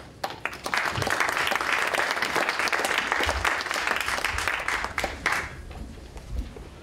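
Audience applauding: the clapping builds within the first second, holds for about four seconds, then dies away.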